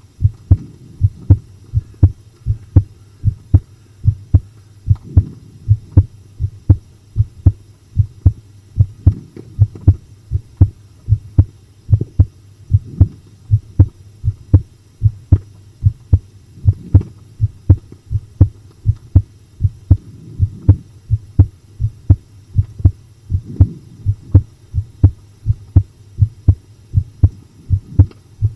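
A human heartbeat, pounding in a steady rhythm of low thumps over a faint low hum.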